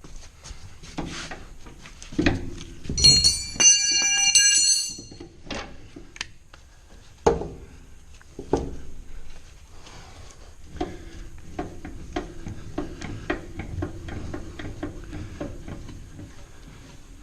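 Metal knocking and clanking from work on the baler's steel parts, with a loud ringing clang about three seconds in that lasts a couple of seconds, then softer scattered knocks.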